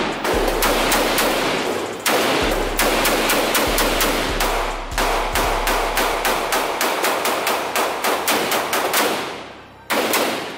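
Rapid gunfire: long strings of quick shots, about four a second, each trailing off in echo, with short breaks between strings and a pause before a last shot near the end.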